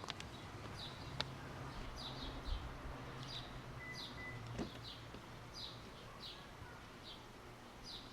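A bird chirping repeatedly, short falling notes a little over once a second, some in pairs, over a faint steady low hum with a couple of clicks.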